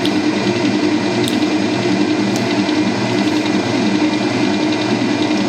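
Electric stand mixer motor running steadily at speed 2, a constant mechanical hum.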